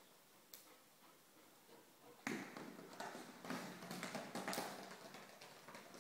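An Old English Sheepdog's claws clicking and scrabbling on a tile floor as it pounces on and paws at a toy, a busy run of scrapes and taps starting about two seconds in after a near-quiet start.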